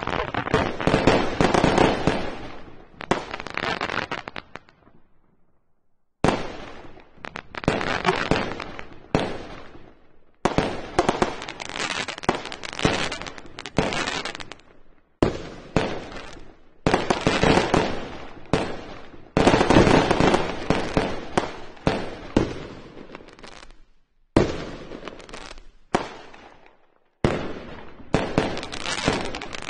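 Fireworks display: dense volleys of shell bursts and crackling, which stop abruptly a few times into brief near silence, the longest break about five seconds in.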